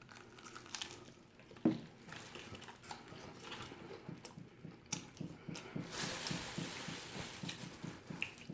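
Close-up eating sounds: chewing with small wet clicks and crunches, settling into an even chewing rhythm of about two to three bites a second in the second half, with a brief rustle near the end.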